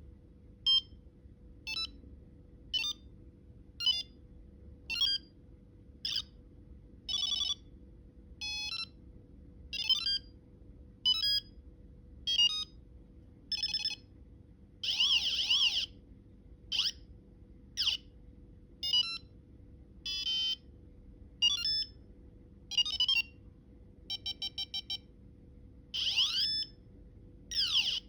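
Microcontroller-driven electronic buzzer playing a rapid series of different short sound effects, about one a second: single beeps, warbling trills, a quick run of five beeps, and rising and falling pitch sweeps.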